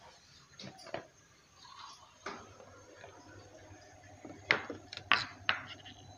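Okra pods and a kitchen knife knocking on a wooden chopping board: a few light taps, then a run of sharper knocks in the second half as the knife begins chopping through the lined-up pods.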